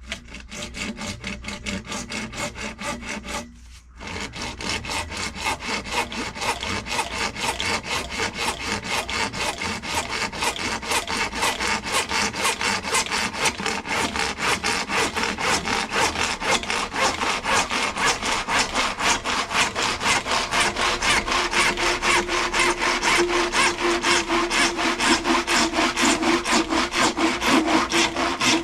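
Hand saw cutting with steady back-and-forth strokes, about three a second. The strokes break off briefly about four seconds in, then resume and grow louder toward the end.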